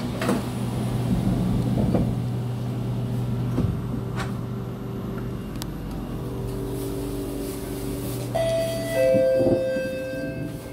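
Inside a Kawasaki–Nippon Sharyo C751B metro car pulling away: a steady low hum with a few clicks and knocks. About six seconds in, the electric traction equipment starts a steady whine whose tones jump to new pitches in steps as the train starts off.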